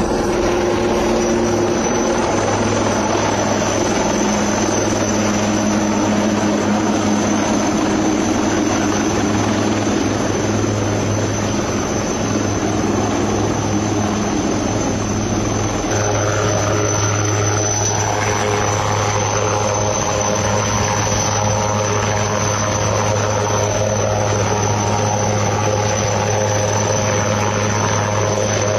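Helicopter running steadily, its engine and rotor giving a continuous loud drone with a thin high whine over it.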